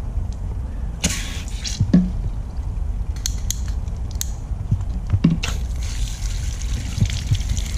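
A few handling clicks as the pistol-grip garden hose nozzle's dial is turned, then, a little past halfway, water jetting from the hose nozzle into a plastic spray bottle and splashing over its neck, a steady hiss.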